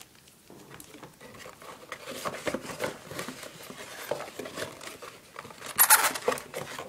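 Rustling and crinkling of packaging being handled as the accessories are taken out of the box, with a louder crinkle about six seconds in.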